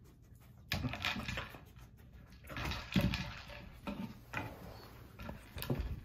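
A duck toller sniffing and nosing a plastic blender bottle with kibble inside across carpet, in irregular scuffling bursts with a few sharp clicks as the bottle is pushed and rolls.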